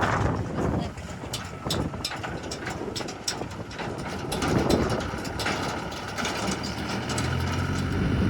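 Heavy diesel engine running steadily, with scattered clanks and knocks, and the engine note growing stronger near the end.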